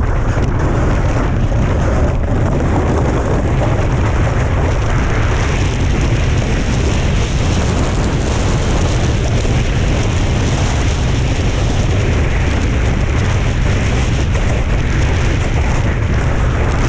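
Steady, loud wind rumble buffeting the GoPro's microphone at speed, over the continuous hiss and scrape of a snowboard running on hard snow.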